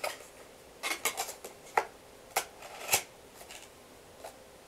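Light rustling and a few sharp clicks and knocks of objects being handled and moved about, with a small cluster about a second in and single sharper knocks around two, two and a half and three seconds in.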